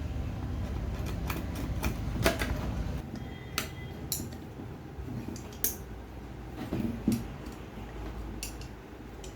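Metal hand tools and turbocharger parts clinking and tapping against each other during assembly: about six sharp, separate clinks a second or so apart, over a low rumble that drops away about three seconds in.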